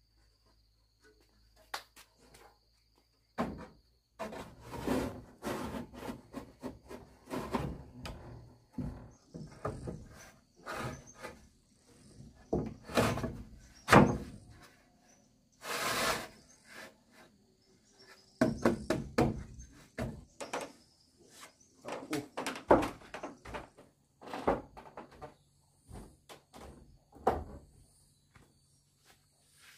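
Irregular knocks, thuds and scrapes of objects being handled, some loud, with a longer scraping rush about halfway through, over a faint steady chirring of insects.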